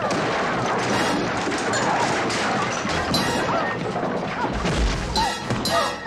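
Movie fight sound effects: crashes, smacks and thuds of bodies and furniture in a brawl, with heavy thumps near the end and short shrieks and yells, over background music.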